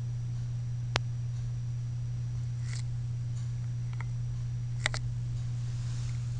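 A steady low hum, with a sharp click about a second in and a quick double click near five seconds.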